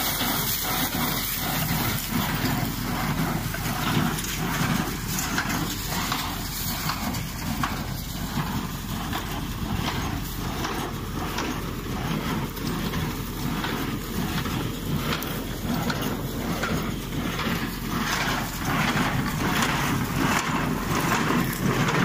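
Claas 55 small square baler at work behind a tractor: tractor engine running and the baler's pickup and plunger mechanism clattering steadily, with regular knocks as it packs straw.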